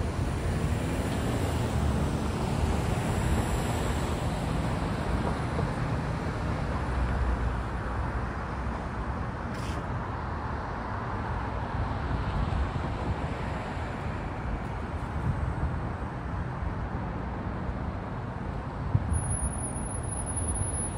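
Road traffic: cars driving through a city intersection, a steady wash of engine and tyre noise that swells and fades as vehicles pass.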